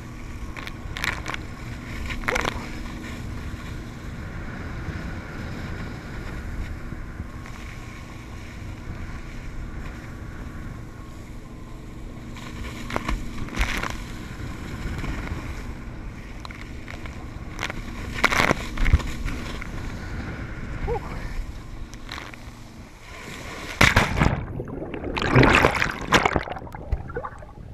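Steady rush of wind and water spray around a slalom water skier being towed, with a few brief splashes and the faint steady hum of the towboat's engine. About 24 seconds in, loud splashing and churning water as the skier goes down into the water.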